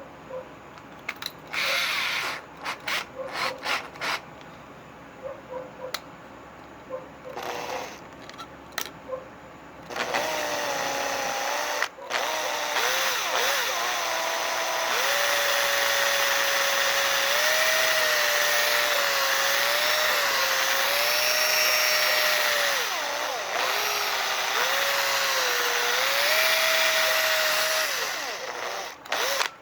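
Electric drill: a few short bursts and clicks in the first ten seconds, then one long continuous run of nearly twenty seconds whose motor pitch sags and recovers as it works under load.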